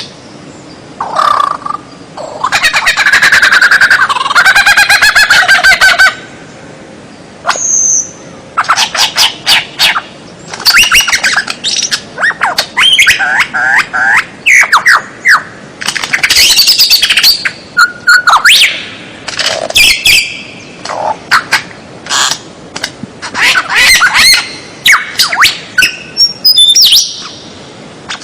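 Songbird singing a loud, varied song of rapid buzzy trills, chattering notes and quick whistles, with short pauses between phrases.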